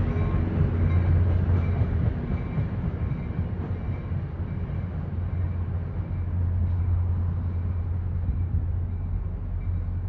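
NJ Transit Atlantic City Line train arriving, its EMD GP40PH-2B diesel locomotive giving a steady low engine drone over rail rumble. A faint high ring repeats about every three-quarters of a second.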